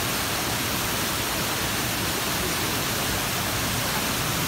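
Waterfall pouring down a steep rock chute: a steady, even rush of falling water.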